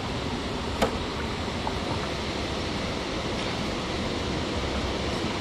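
Steady outdoor rushing noise, with one sharp click a little under a second in and a few faint ticks after it.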